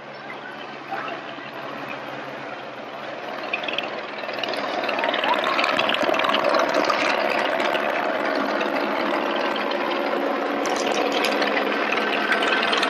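Helicopter flying overhead, its rotor chop and engine growing louder from about four seconds in as it comes closer, then holding steady.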